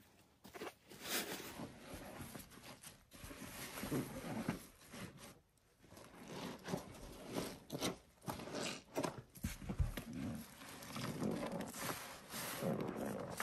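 Rubber-gloved hands pressing and squeezing sponges soaked in thick, foamy pine cleaning paste: wet squelching and squishing of lather in irregular pulses, with a few sharper clicks.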